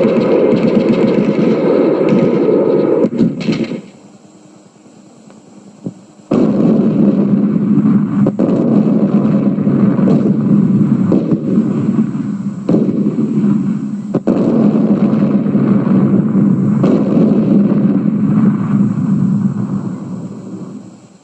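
Radio sound effect of a war machine: a heavy, continuous rumble broken by several sharp bangs. It cuts off about four seconds in, returns after a short gap, and fades out near the end.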